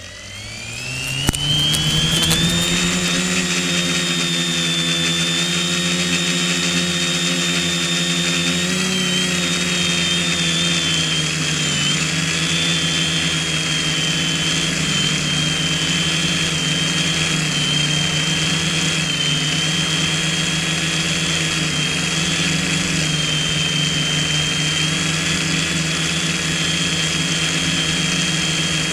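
Quadcopter's electric motors and propellers spinning up with a rising whine over the first two seconds, then running at a steady pitch in flight, heard close from the camera mounted on the craft. A sharp click comes about a second in.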